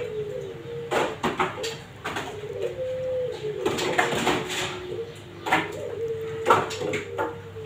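A dove cooing repeatedly in the background, a run of low coos that hold or fall slightly in pitch. Short sharp clicks and knocks come through it, the loudest about a second in and twice near the end.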